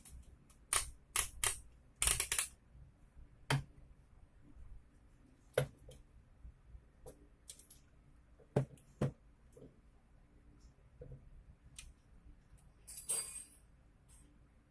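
Irregular clicks, taps and a short clatter of small parts being handled while a cordless drill is taken apart, with a brief scrape about thirteen seconds in.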